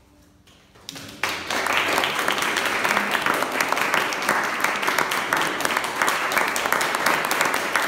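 Audience applauding: after a second of hush at the end of the piece, clapping breaks out and continues steadily.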